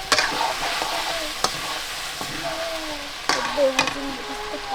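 Food frying in a pan: a steady sizzle, with several sharp clicks of a utensil against the pan as it is stirred.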